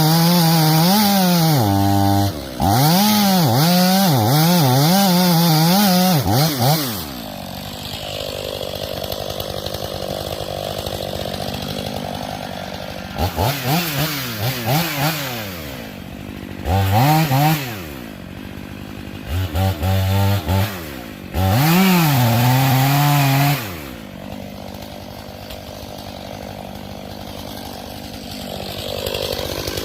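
Two-stroke chainsaw run at full throttle in repeated bursts, its pitch dipping and recovering as the chain loads up in the wood. Between the bursts it drops back to a quieter idle.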